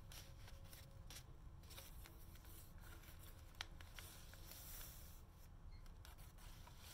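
Faint rustling and soft ticks of stiff paper pages being turned and handled in a handmade journal, with one sharper click about three and a half seconds in.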